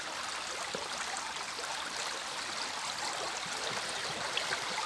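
Shallow, fast-flowing creek running steadily, an even rushing of water.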